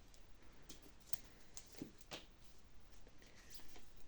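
Faint rustles and soft taps of tarot cards being handled and laid out on a table, scattered and irregular over quiet room tone.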